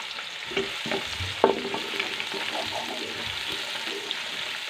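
Sliced onions sizzling as they start to fry in hot ghee in a metal pot, stirred with a wooden spatula that scrapes and knocks against the pot; the sharpest knock comes about a second and a half in.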